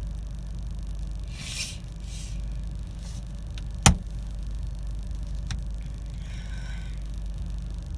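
Steady low rumble of a car cabin, with a few short breathy sounds and one sharp click a little before halfway through.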